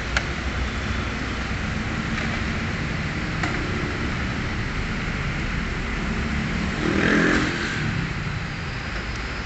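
Steady low background rumble, like vehicle or traffic noise, with a few faint clicks as a hose and its connector are fitted by hand; a louder swell about seven seconds in.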